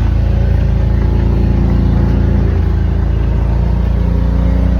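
Gator utility vehicle's engine running steadily as it drives, a constant low engine hum with no change in pitch.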